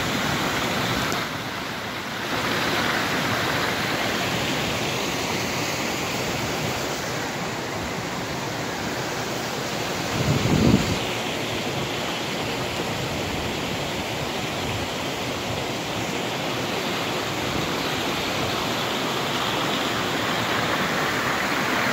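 Steady rushing of a small stream spilling over a low step and running through a metal-grated channel, with one brief low thump about halfway through.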